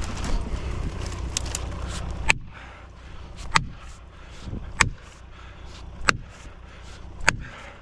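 A steady low rumble for about two seconds, then five sharp ringing hammer blows, evenly spaced about 1.2 seconds apart, typical of a felling wedge being driven into the back cut of a large oak.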